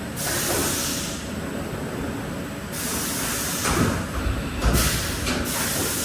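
Haas VF4SS vertical machining centre running a demo program, with repeated bursts of hiss and a few low thuds in the middle of the run.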